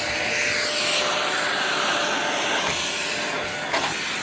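Bush multi-cyclonic bagless cylinder vacuum cleaner running steadily, its floor head being pushed back and forth. It is hard to push despite the suction release valve being open. A brief knock comes near the end.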